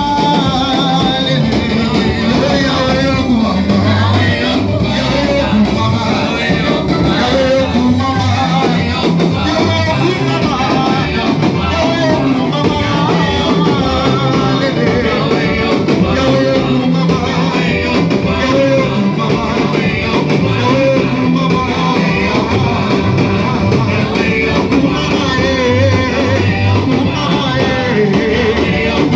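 Church worship music: singing over a band with guitar and bass, played steadily and loud.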